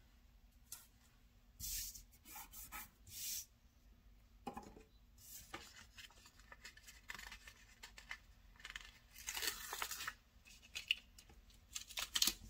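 Paper sticker sheet and planner pages being handled: a series of short, crisp peeling and rustling sounds as grass stickers are peeled from their backing and pressed onto the page.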